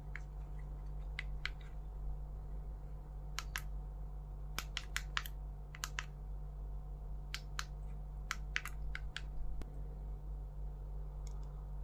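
Irregular sharp clicks and taps of hard plastic being handled during a toy unboxing, most of them in the middle of the stretch, over a steady low hum.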